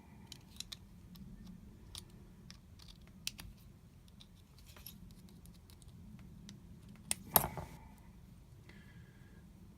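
Small metal clicks and taps from handling a Union padlock while its rear retaining clip is worked out, with one louder clack about seven seconds in.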